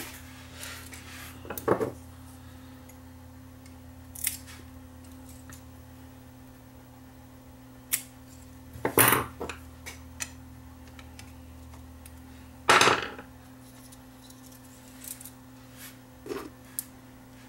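Scattered clicks and clatter of small metal hand tools (scissors, a screwdriver, snips) being handled and set down on a wooden workbench while 8-track tape is cut and spliced. The loudest clatter comes about 13 seconds in, over a steady low hum.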